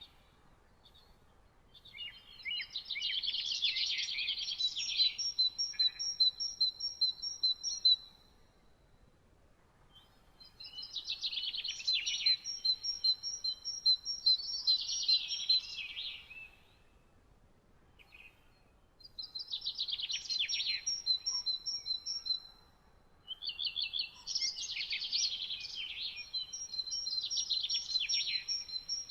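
A songbird singing in four bouts of several seconds each, separated by short pauses; each bout is a fast chattering trill with clear high repeated notes running through it.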